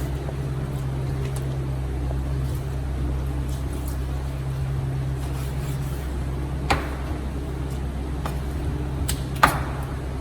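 A steady low hum with a few faint clicks, and two sharp knocks, one about seven seconds in and a louder one near the end, like utensils or dishes being set down during kitchen work.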